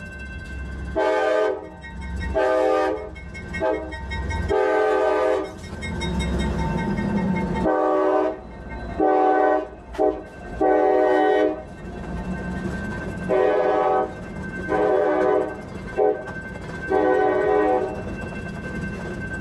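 Locomotive air horn sounding the grade-crossing signal, long, long, short, long, three times over. This is the standard warning of a train approaching a road crossing, over a steady low rumble.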